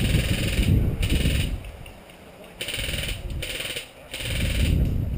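Airsoft electric guns firing short full-auto bursts, about five bursts of roughly half a second each, with a rapid mechanical rattle.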